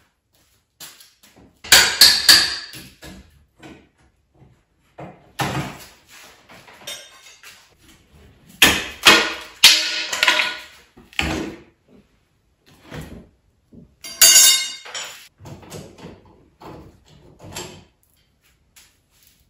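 Knocking, banging and cracking from an interior drywall wall being broken apart by hand, coming in several clusters of quick sharp strikes with short pauses between.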